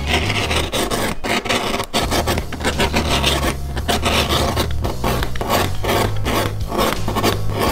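A hand carving blade scraping a groove into thick leather in repeated short strokes, shaving off curls of leather.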